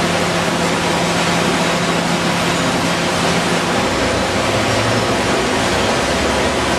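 Steady din of a recycling sorting line's machinery: conveyor belts and sorting equipment running continuously. A low hum gives way to a deeper rumble about halfway through.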